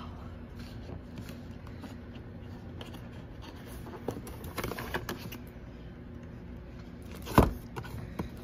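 Cardboard MacBook Air box being handled and opened: soft rustling and scraping of the lid and packaging, with a sharp thump about seven seconds in as something is set down.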